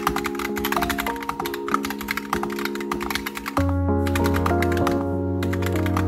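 Fast typing on a Royal Kludge typewriter-style mechanical keyboard with round keycaps: a dense run of keystroke clacks. Background music plays under it, with a bass line coming in a little past halfway.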